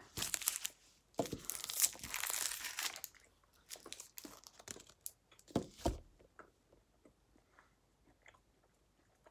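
A crinkly plastic sweet wrapper being torn open and crumpled for about three seconds, then quieter scattered crackles and clicks with one low thump about six seconds in.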